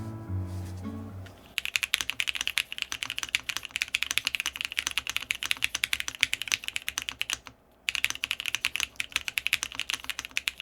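Fast typing on an Akko ACR 75 V2 mechanical keyboard, a gasket-mount board with a polycarbonate plate: a rapid, steady stream of keystrokes with one short pause a little past halfway. Music plays for about the first second and a half and stops as the typing starts.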